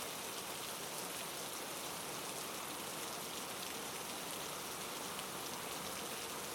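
Steady rain falling, an even pattering hiss with no thunder.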